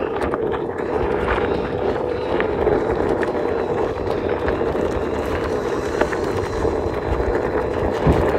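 Small camera drone's propellers running with a steady buzz, a faint high whine above it.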